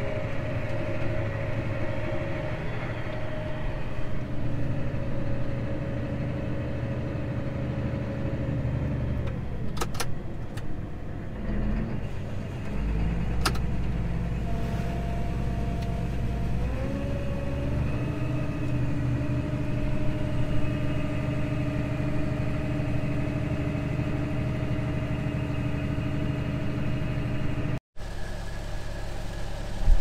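John Deere tractor's diesel engine running steadily, heard from inside the cab while the auger cart unloads corn. The engine note drops about nine seconds in and climbs back up a few seconds later, with a couple of sharp clicks in between.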